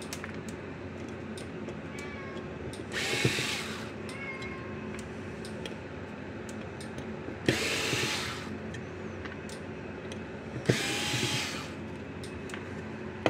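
Cordless electric screwdriver backing screws out of a circuit board in three short runs, each about a second long and each starting with a click.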